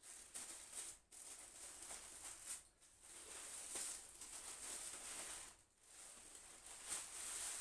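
Packing material rustling and crinkling as it is handled, in three or four long stretches with brief pauses between them.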